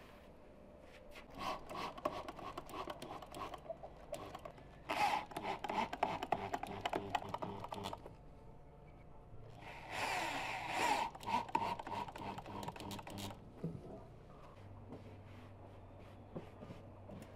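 Cordless drill driving screws through a chair's metal frame into its padded backrest, running in three spells of about three seconds each with a rapid clicking rattle.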